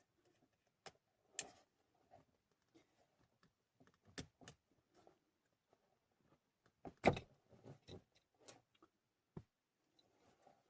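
Scattered faint clicks and taps of a plastic wiring connector being handled, its red locking tab pushed at and failing to click into place. A louder knock comes about seven seconds in.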